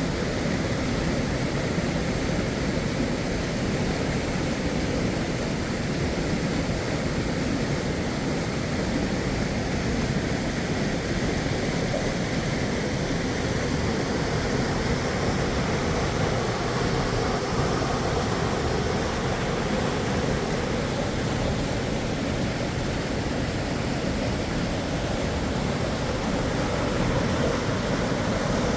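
River water rushing steadily over rocks, an even rush of noise that does not change.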